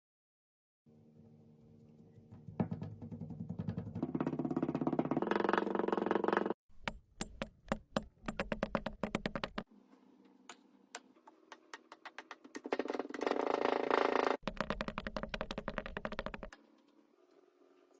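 Kinetic sand being squeezed and cut, giving dense crunchy crackling in two long loud bursts, with scattered single crackles in between.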